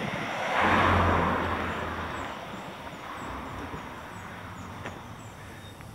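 A car passes close by. Its engine hum and tyre noise swell about half a second in and fade away over the next two seconds, leaving quieter road noise.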